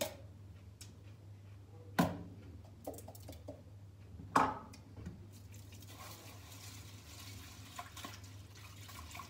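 Rice being washed in a plastic bowl at a kitchen sink: water trickling and sloshing, with two sharp knocks about two and four and a half seconds in, and the tap running steadily from about halfway.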